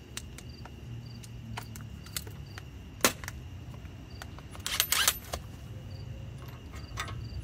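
Clicks and metallic clatter of hand tools being handled as a 21 mm socket is fitted onto a cordless impact wrench; the wrench itself is not run. There is one sharp click about three seconds in and a quick run of clicks around five seconds, with fainter scattered clicks between.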